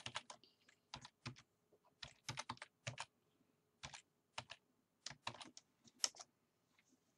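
Computer keyboard typing: quiet key clicks in irregular clusters with short pauses between them.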